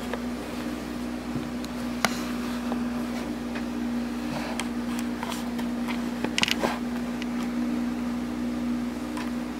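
Steady low machine hum made of two close tones, with a sharp click about two seconds in and a brief cluster of clicks and rustles a little after six seconds.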